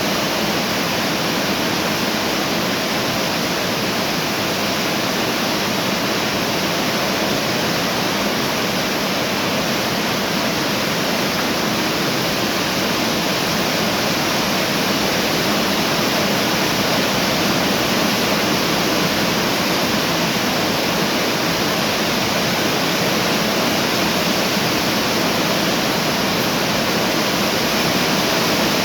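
Heavy rain pouring down: a loud, steady rush of rain.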